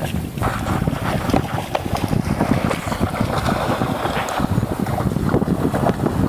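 Wind buffeting the microphone: a loud, gusty rumble full of crackles.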